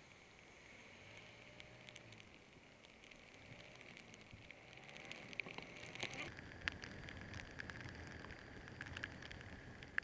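Rain pattering and ticking on the camera's housing, the drop hits growing denser about halfway through, with a few sharper single taps.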